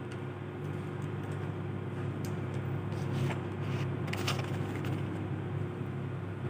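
A steady low hum runs throughout. Over it come light rustles and clicks from a shoulder bag and its plastic mailer being handled, mostly between two and four and a half seconds in.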